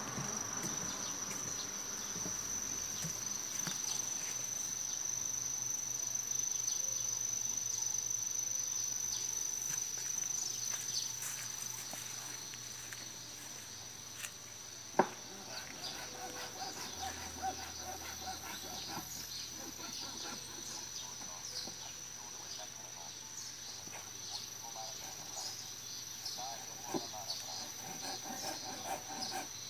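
Steady, high-pitched insect drone that runs on without a break. A single sharp click stands out about halfway through.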